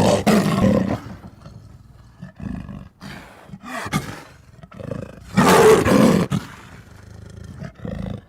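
African leopard calling in a series of rough roars. The loudest comes about five to six seconds in, with weaker calls between.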